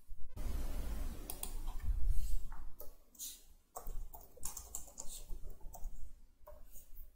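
Typing on a computer keyboard: a string of irregular keystroke clicks from about two and a half seconds in, after a low rumble at the start.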